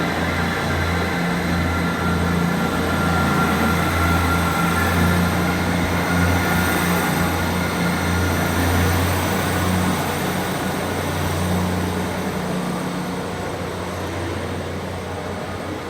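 A train running past, its steady low hum and higher whine swelling to a peak partway through, then slowly fading near the end.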